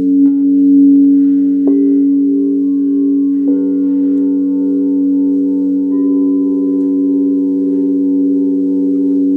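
Several singing bowls ringing together in long, overlapping, sustained tones. Fresh bowls are struck about two and three and a half seconds in, and one tone wavers in a slow pulse.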